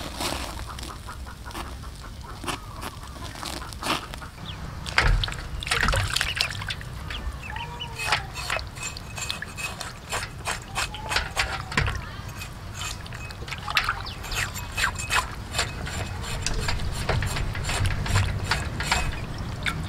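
Water splashing and sloshing in an aluminium basin as a singed oxtail is scrubbed and scraped with a large knife, with repeated short scrapes and knocks. The scraping cleans the charred hair and skin off the tail after singeing.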